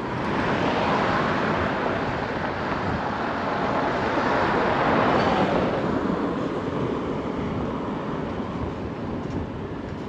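Wind rushing over the microphone of a camera riding on a moving bicycle: a steady rumble and hiss that swells about halfway through and eases off toward the end.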